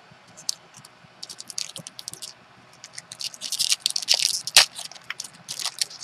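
Trading cards being handled and slid against one another: a run of light scratchy scrapes and clicks, busiest about three to four and a half seconds in.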